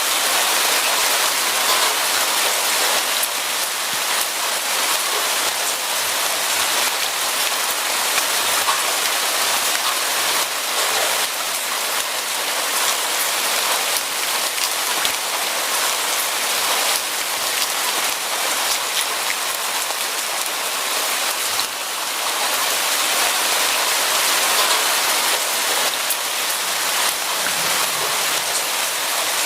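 Steady rain falling on a surface: a dense, even hiss of many drops.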